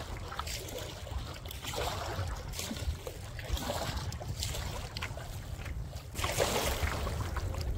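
Canoe paddle strokes in choppy water: water swishes and splashes, swelling up about three times a couple of seconds apart, over a steady low rumble of headwind on the microphone.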